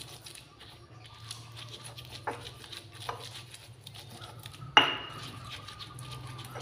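Stone pestle grinding red chilies in a stone mortar (cobek and ulekan): soft irregular scraping and knocking of stone on stone, with one sharp, loud knock a little before the five-second mark.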